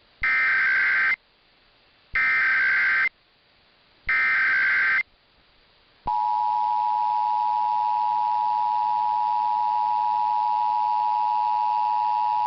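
Emergency Alert System SAME header broadcast over AM radio: three bursts of warbling data tones, each about a second long and about a second apart. About six seconds in, the steady two-tone EAS attention signal starts and holds, announcing the nationwide test alert.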